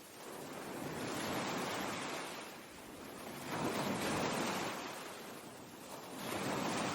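Ocean surf: waves breaking and washing in, the rush swelling and fading three times, about every two to three seconds.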